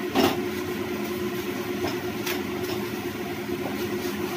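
A spatula scraping and knocking against a nonstick frying pan as a stack of parathas is lifted and turned. The loudest scrape comes just after the start and a lighter one about two seconds in, over a steady mechanical hum.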